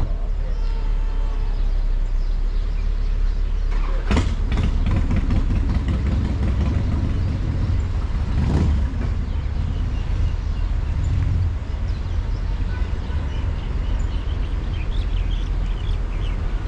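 Car driving slowly, with a steady low rumble of engine and road noise. Two brief louder rushes of noise come about four and eight and a half seconds in.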